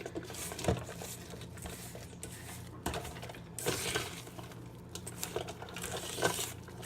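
A utensil scraping and clinking against a bowl as crushed Oreo cookies are stirred into vanilla ice cream, with several sharper knocks scattered through.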